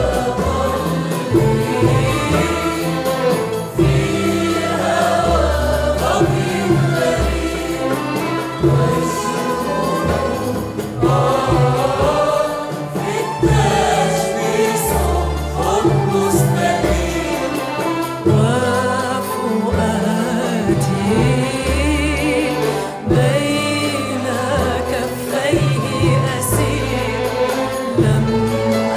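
Mixed choir singing an Arabic song with a string orchestra, violins and cellos included: a wavering melodic vocal line over sustained low bass notes.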